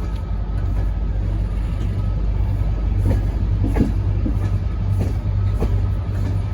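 Train with Class 67 diesel locomotive 67012 moving through: a steady low engine rumble, with the wheels clicking over rail joints several times.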